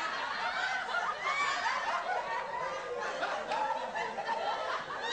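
Several people laughing and snickering at once, voices overlapping throughout.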